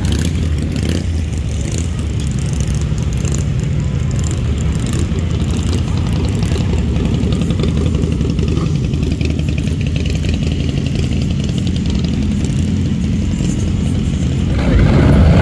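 Motorcycle engines running at low speed in steady traffic, a deep continuous rumble. It gets louder near the end as a nearer bike runs closer.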